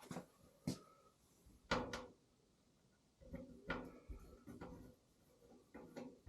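Sharp clicks and knocks of hard objects being handled, four spaced ones in the first two seconds, then a busier run of knocks and clatter from about three seconds in.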